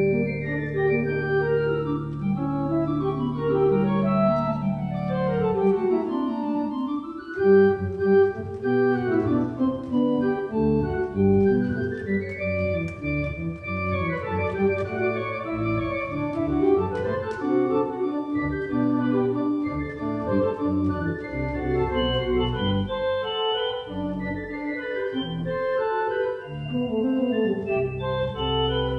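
Church organ playing a Baroque sonata in several independent contrapuntal lines. A low bass note is held for about the first five seconds, then the parts move separately against each other.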